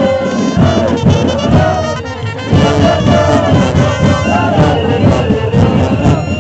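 A brass band playing loudly, with a crowd of carnival-goers singing along.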